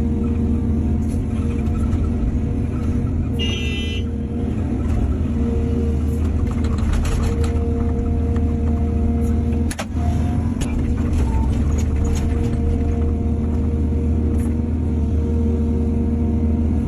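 Excavator's diesel engine running steadily, with a brief high squeal about three and a half seconds in and scattered knocks and clanks.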